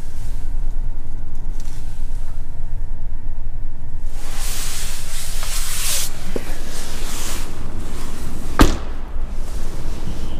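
Rustling movement as someone climbs out of a Tesla Model 3, then a single sharp slam of the car door about two seconds before the end, over a steady low rumble.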